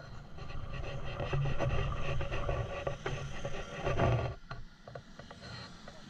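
Wind buffeting and rubbing on the microphone of a camera riding on a moving motor scooter, a low rumble with scratchy crackle over the road noise. It peaks about two-thirds of the way through, then eases for a moment.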